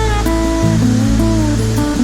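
Background music: plucked guitar notes, some sliding in pitch, over steady held bass notes.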